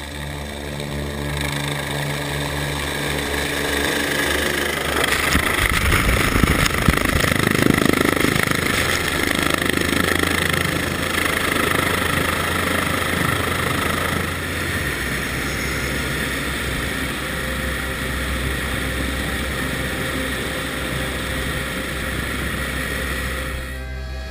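Helicopter landing close by in snow: steady rotor and turbine noise with a rush of rotor wash that swells to its loudest about six to ten seconds in, then eases to a steadier, even drone in the last third.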